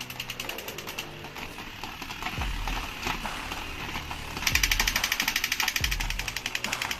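Battery-operated toy clicking and rattling rapidly, about ten clicks a second, louder from about halfway in. Deep falling booms come every second and a half or so.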